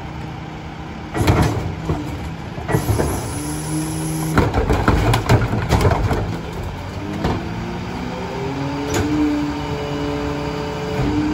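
Freightliner Econic McNeilus rear-loader garbage truck at work: engine and hydraulics running, with several metal clanks and bangs in the first half and a whine that rises in pitch over a couple of seconds in the second half.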